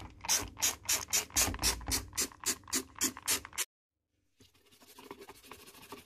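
A run of quick, even, hissy strokes about four a second for about three and a half seconds, then after a short pause softer, steady scratching of a toothbrush scrubbing the plastic recess behind a washing machine's detergent drawer.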